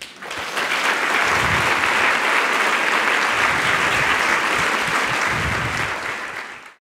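Audience applauding, building up in the first half second, then steady, fading and cutting off suddenly near the end.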